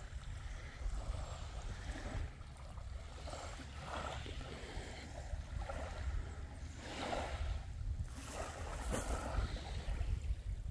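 Wind buffeting the microphone in a steady low rumble, with small waves lapping at the shore every second or two.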